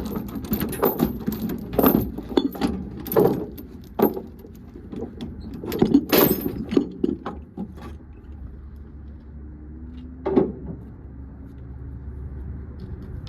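Metal chain and binder hardware clinking and clanking as it is handled, many sharp clanks over the first several seconds, then one more clank about ten seconds in. A low steady engine hum runs underneath.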